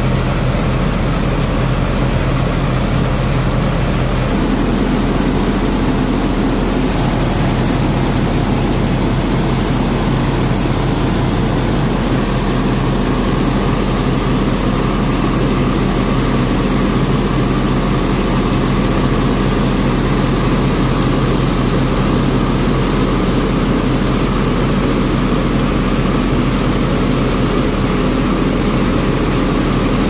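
Rice mill running steadily while it hulls the rice: a loud, continuous machine drone with a dense rush of noise over it.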